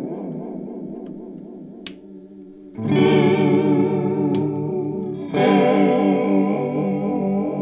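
Electric guitar played through an Electro-Harmonix Polychorus pedal. A chord rings out with a regular wavering modulation and fades, then two new chords are strummed about three and five and a half seconds in, each ringing on with a chorus shimmer.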